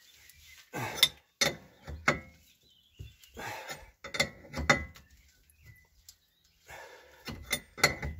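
Open-end wrench clinking against the nut of a threaded bearing-press tool as it is turned and refitted on the nut, drawing a front wheel bearing into the steering knuckle. The clicks are short and metallic, with a slight ring, and come in irregular bunches with quiet gaps between them.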